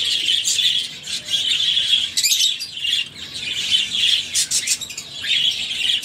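A flock of small Australian parrots chirping and chattering continuously, with many high calls overlapping in waves.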